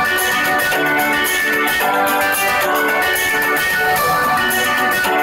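Background instrumental music with a steady rhythm.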